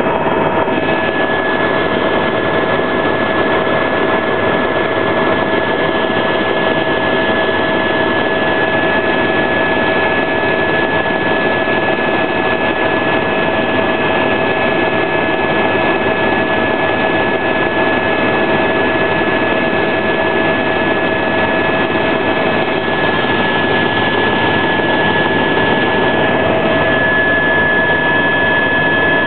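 Helicopter in flight heard from inside the cabin: a loud, steady engine and rotor rush with a constant high-pitched whine over it.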